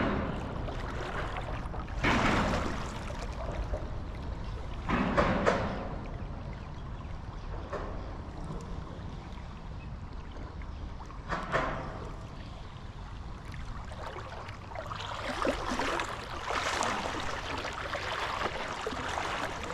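Creek water running, a steady rushing noise, with several brief louder swells of noise over it.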